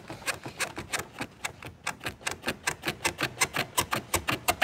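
Rapid, evenly spaced clicking, about seven clicks a second, growing louder toward the end.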